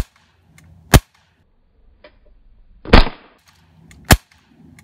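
Air-cartridge BB pistol firing four sharp, cracking shots at a concrete block, roughly a second or two apart. The third shot rings on a little longer than the others.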